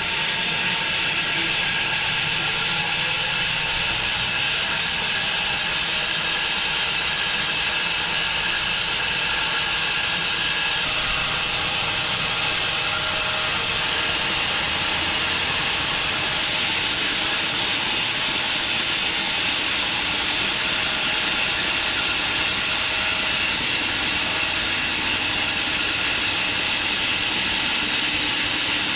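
Home-built wide bandsaw mill running steadily with a high hiss, its band blade sawing slowly through a small elm log.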